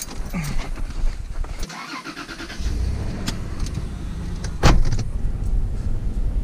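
Car heard from inside the cabin: clicks and handling noises as the driver gets in, then from about two and a half seconds in the engine running with road noise as the car drives off. A sharp thump comes a little before the end.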